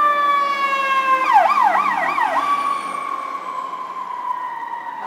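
Emergency vehicle siren sounding: a long wail slowly falling in pitch, which breaks into a quick warble for about a second and then goes back to the steady wail.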